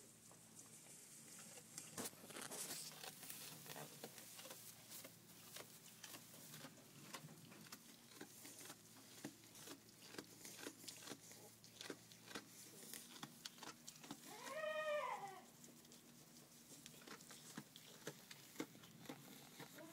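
A Nubian goat kid bleats once, a single call of about a second that rises and falls in pitch, about fourteen seconds in. Around it there are only faint, scattered clicks and rustles.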